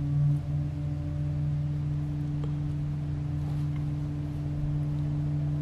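A steady low hum of two held pitches, unchanging throughout.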